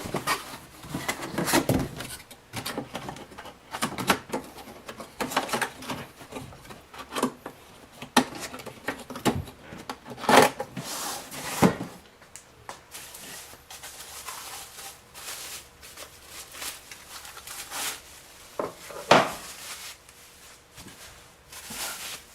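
Cardboard box, packing material and gun vise parts being handled and unpacked: irregular rustling and scraping with scattered knocks, the sharpest about ten and nineteen seconds in.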